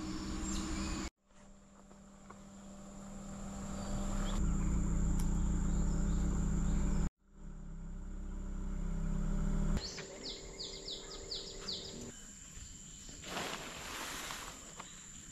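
A car's engine and tyres rumbling as it drives, broken off twice by abrupt cuts. About ten seconds in the rumble stops, leaving rural ambience: a steady high insect whine and a short run of quick insect chirps.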